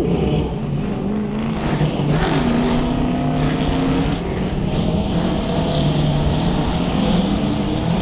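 Race utes' engines running as they pull out of pit lane and head down the circuit, several engines at once. The engine note holds steady, then changes pitch a few times.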